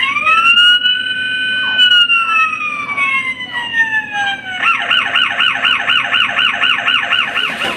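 Toy RC police car's electronic siren: one long wail that rises, holds and slowly falls, then switches to a fast warbling yelp, about four cycles a second, that cuts off near the end.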